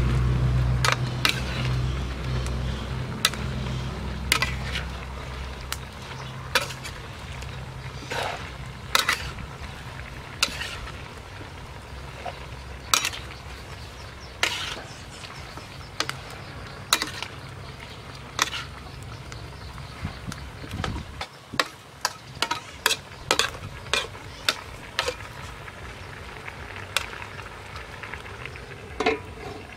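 Metal spatula clanking and scraping against a steel wok in irregular strokes as eel and sliced vegetables are stir-fried, with frying sizzle underneath. A low hum fades out over the first several seconds.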